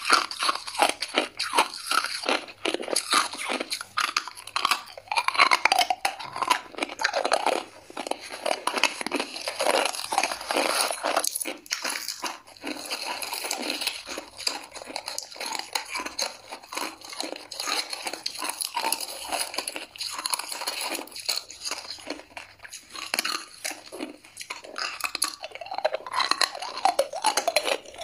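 Hard ice being bitten and chewed close to a clip-on microphone: dense, irregular crunching and cracking.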